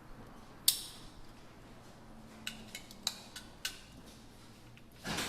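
Sharp plastic-and-metal clicks of a wiring plug being pushed into a spare door-lock switch unit and the parts being handled inside a commercial washing machine's open cabinet. One loud click comes just under a second in, then several lighter ticks, and a short clatter near the end.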